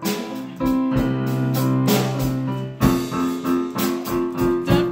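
Electronic keyboard played with a piano voice: held chords at first, then from about three seconds in a steady rhythm of repeated chords, roughly three a second.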